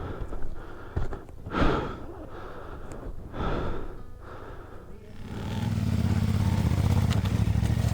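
Heavy breaths, two loud gasping exhales after the effort of lifting a motorcycle, then about five seconds in a motorcycle engine comes in and runs with a steady low drone.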